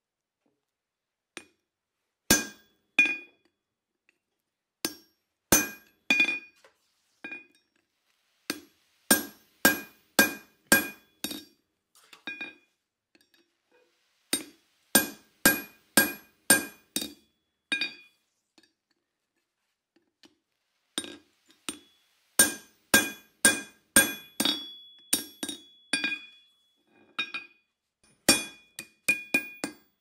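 Hand hammer striking a chisel driven into red-hot steel bar on an anvil. The blows come in quick runs of two to six with short pauses between, each with a short metallic ring.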